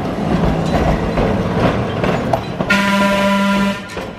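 Pacific Electric red car, an electric interurban, rolling past with a rumble of wheels on rail. About two and a half seconds in it sounds one horn blast that lasts about a second.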